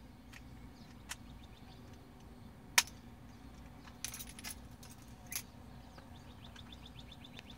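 Keys jingling and a few sharp metal clicks, the loudest about three seconds in, as a 2008 Ford Escape's ignition lock cylinder with its key in it is handled and fitted into a new ignition housing flange.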